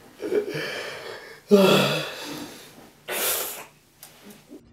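A man sobbing, his face in his hands: a loud, breathy, voiced cry about a second and a half in, then a short, sharp rushing breath, with ragged breathing between.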